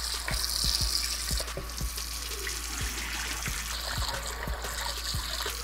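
Tap water running steadily over walleye fillets as they are rinsed, with a few soft knocks.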